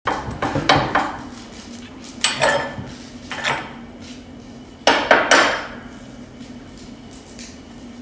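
Metal fireplace poker clanking against the cast-iron wood stove's firebox and kindling, in four clusters of sharp knocks with a short metallic ring, then a faint knock near the end.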